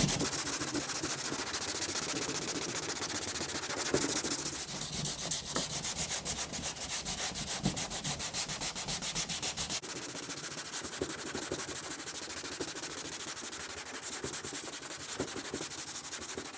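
Sandpaper being rubbed back and forth over cured, rock-hard Bondo body filler on a car panel, knocking the filler down with coarse 80–120 grit. The rasping comes in quick, even strokes, a few a second, and gets quieter a little past halfway.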